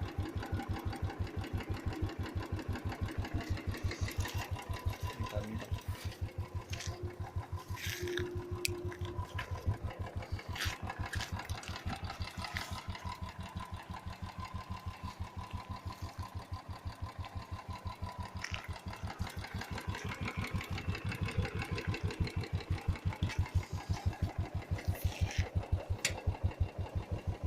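Royal Enfield Thunderbird 350's single-cylinder engine idling with a steady, even, rapid beat, with a few short clicks now and then.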